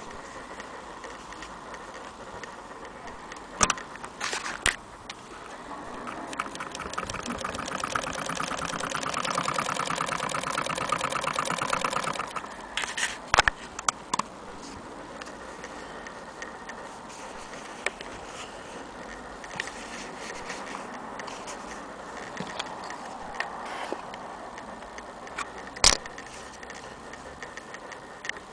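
Antique Willcox & Gibbs chain-stitch sewing machine, turned by hand, stitching: a fast, even rattle starts about five seconds in, grows louder and stops about twelve seconds in. A few sharp knocks come before and after it.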